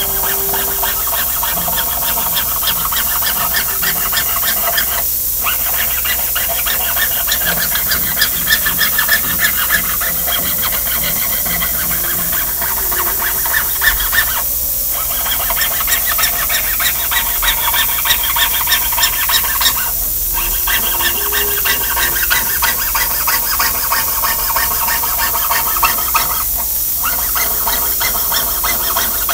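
Jeweller's saw cutting a thin metal sheet on a wooden bench pin: rapid back-and-forth strokes of the fine blade, rasping with a squeal. The sawing breaks off briefly a few times.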